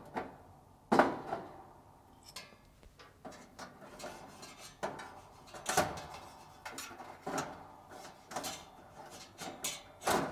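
Spade wire connectors being pulled off the terminals of a dryer's heating element assembly, with needle-nose pliers and by hand: scattered sharp clicks and light metal taps, the loudest about a second in, near six seconds and just before the end.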